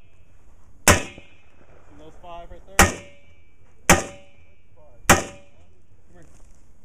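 Four rifle shots at uneven intervals, fired through a corrugated plastic culvert pipe, each sharp crack followed by a brief ringing tail.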